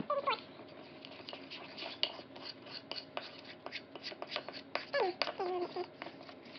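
Hands working a wet, sticky slime mixture, making many small irregular clicks and smacks. A brief voice-like sound with falling pitch comes about five seconds in.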